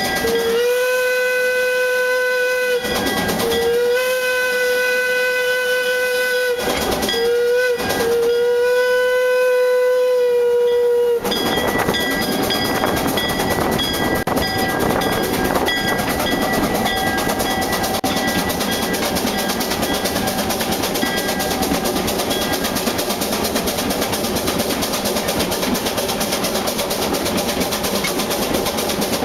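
Steam whistle of 1904 Vulcan Iron Works two-foot-gauge locomotive No. 10, blown as two long blasts, a short one and a long one, the grade-crossing signal. After the whistle stops about eleven seconds in, the steady rumble and clatter of the narrow-gauge train running on the rails.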